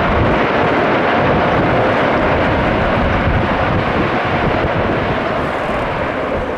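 Jet engine noise from a landing Airbus A320neo (CFM LEAP-1A engines), slowly fading as it rolls out after touchdown, with gusty wind buffeting the microphone.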